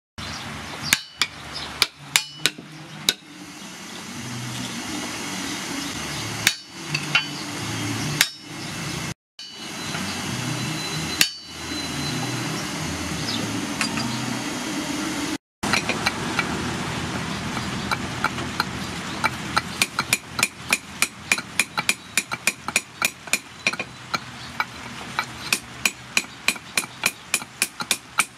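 Hand hammer striking a steel axe head and the end of its wooden handle while hafting the axe. A few separate blows come first, then from about two-thirds of the way through a fast, even run of light taps, roughly three a second.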